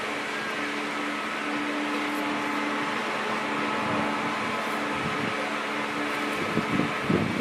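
Grabber truck's engine and hydraulic power running as a steady hum with a few constant tones.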